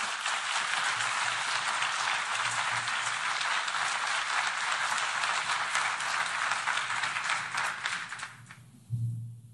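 Audience applauding, a dense even clatter of many hands clapping that dies away about a second before the end.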